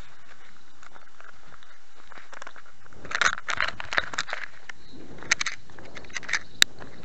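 Handling noise on a small 808 keychain spy camera: over the camera microphone's steady hiss, the camera rubs and scrapes against fabric with crackly rustles and clicks from about three seconds in, and one sharp click near the end.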